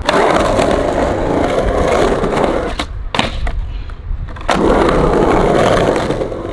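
Skateboard rolling on a transition, the wheels giving a steady rumble. Sharp clacks of the board land at the start and twice close together about three seconds in, and the rolling picks up again with another clack at about four and a half seconds.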